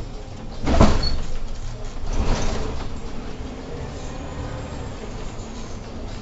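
The passenger doors of an Irisbus Crossway LE city bus, heard from the driver's cab, working with a loud burst about a second in and a second, weaker one a little after two seconds. A steady low rumble from the bus runs under them.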